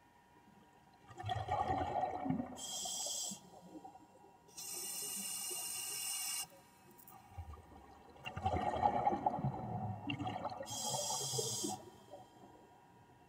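Scuba diver breathing through a regulator underwater: bubbly, gurgling exhalations about a second in and again near eight seconds, with a steady hissing inhalation between them.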